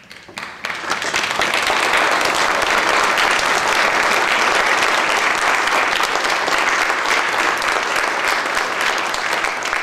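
Congregation applauding, many people clapping together; the applause builds up within the first second and then holds steady.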